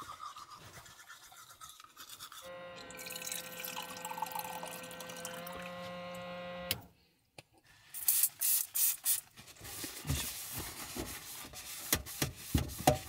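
A steady humming tone holds for about four seconds and stops abruptly. After a short break comes a run of rapid, irregular scrubbing strokes, typical of teeth being brushed with a toothbrush.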